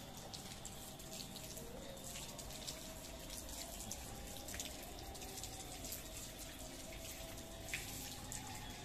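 Water running from a wall tap, with steady splashing and many small drips and splashes on a tiled floor.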